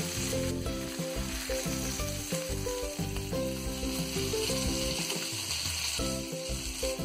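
Hot oil sizzling steadily in a non-stick pan around spice-marinated pomfret being shallow-fried.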